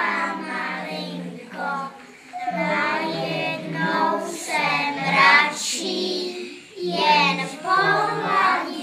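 A small group of young children singing a song together in held, melodic phrases.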